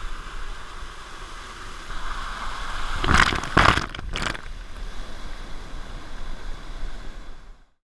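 Waterfall pouring into a plunge pool, a steady rush of falling water, with a few loud splashes of water against the camera between about three and four and a half seconds in.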